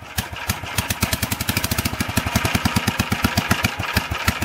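1947 Gravely Model L walk-behind tractor's single-cylinder engine running on its own just after being started, its firing beats quickening from a few a second to a fast, steady rhythm as it picks up speed. This is its first run after a rebuild that freed a stuck exhaust valve and cleaned the magneto and carburetor.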